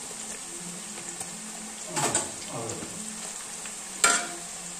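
Banana slices deep-frying in hot oil: a steady sizzle, with a louder stretch about two seconds in and a sharp clink near the end as a slotted spoon goes into the pan.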